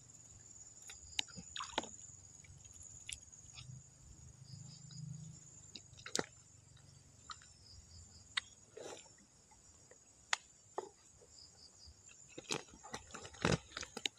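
A steady, high-pitched insect chirring, with scattered sharp clicks and taps, several of them close together near the end.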